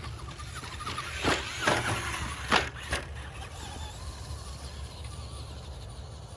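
Electric RC monster truck driving, with a cluster of short, loud sweeping bursts of motor whine and tyre squeal about one to three seconds in, over a steady low hum.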